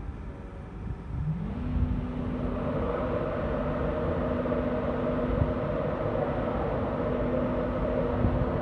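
Class 91 electric locomotive's machinery winding up about a second in: a hum rises in pitch, levels off into a steady tone and is soon joined by a steady whir, the whole getting louder and then holding.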